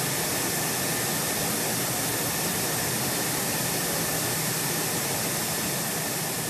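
Steady rushing roar of jet engines running on the flight line, with a thin steady whine.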